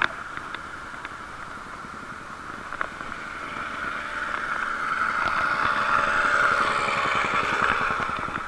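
Motor traffic passing: a vehicle's sound swells about halfway through and eases off near the end.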